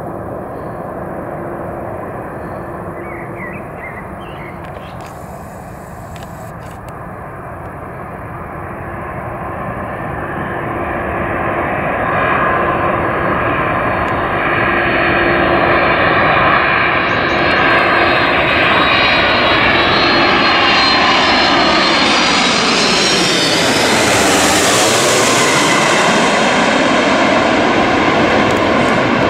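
McDonnell Douglas MD-11 trijet's engines on final approach, the jet noise and engine whine growing louder as it comes in. It passes overhead about three-quarters of the way through, the sound sweeping in pitch as it goes by, and stays loud as it moves away.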